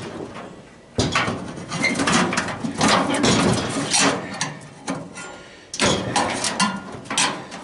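Metal clattering and scraping as hands and a screwdriver work inside a sheet-metal cabinet, in irregular knocks and rattles with sharp hits about a second in and again near the end.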